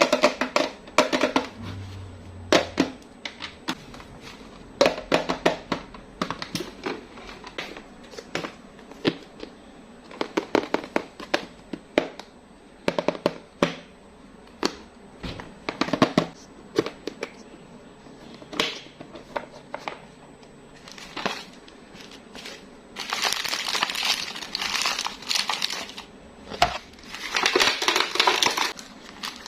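Plastic candy wrappers and packaging being handled: a run of separate sharp clicks and crackles as pieces are picked up and set down, then longer spells of steady wrapper crinkling near the end.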